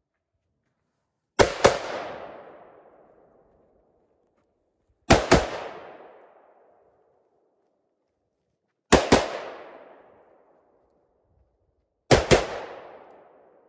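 AR-style rifle fired in double taps: four pairs of shots about three and a half seconds apart, each pair trailing off in a long echo.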